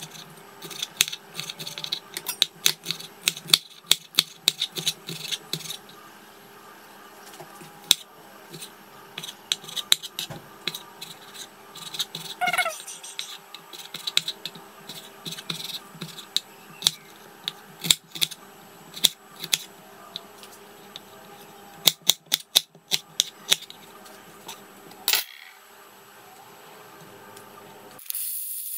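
Chef's knife chopping bell peppers and tomato on a cutting board: sharp knocks of the blade striking the board in quick irregular runs with short pauses. Just before the end, oil starts sizzling in a pan.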